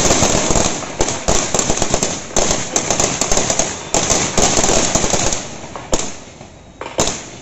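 Feu de joie (harsh fire): a line of parade rifles firing blank rounds one after another in a rapid rippling crackle, tailing off into a few single shots near the end.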